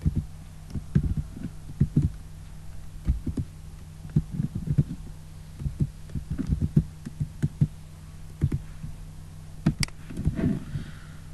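Computer keyboard keys being typed, heard as irregular dull taps over a steady low electrical hum, with a couple of sharper clicks near the end.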